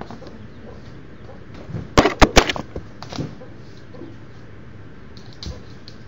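A quick run of four or five loud, sharp knocks about two seconds in, with a couple of fainter taps later. They are so loud that they are right at the microphone.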